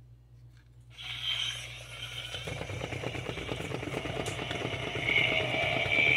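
Gemmy Crawling Zombie animatronic's small electric motor and gears running. About a second in it starts, and it turns into a fast steady rattle as the figure crawls on its wheels and swings its arms.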